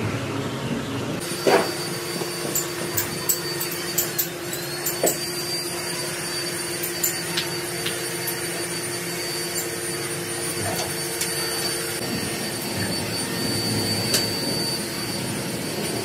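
Steady whir of workshop machinery with a faint high whine. Sharp metallic clinks come at irregular moments, the loudest about a second and a half in, as cast-iron brake-disc castings and mould parts are handled.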